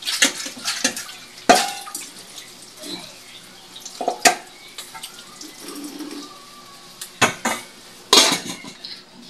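Water running from a tap and splashing in a sink as a stainless steel pot lid is rinsed, with several sharp metal clanks of the lid, one ringing briefly. Near the end the lid clatters down onto the stainless steel pot to cover it.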